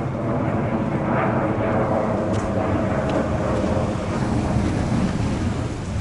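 A jet airliner flying low overhead: a loud, steady rumble with a droning hum through it.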